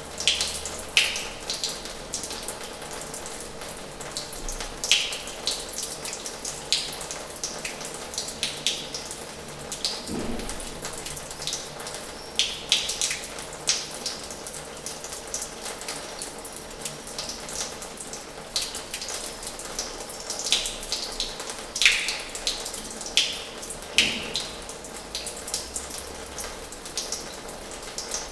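Water running from the tap of an old washhouse into its basin: a steady rush of flowing water with irregular sharp splashes and drops landing.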